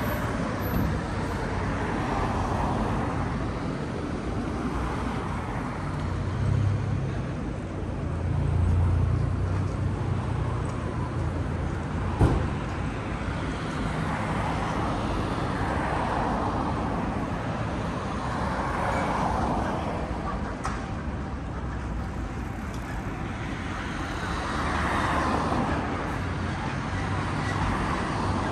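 City street traffic: vehicles passing in a steady urban din, the low rumble swelling for a few seconds in the first half. One sharp click about twelve seconds in.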